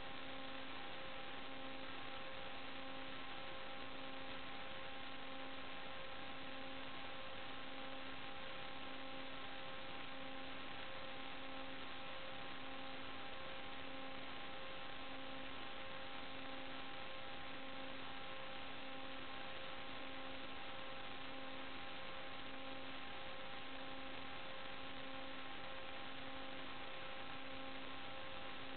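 Steady electrical hiss and hum, with a few fixed tones and a low tone that pulses about once a second.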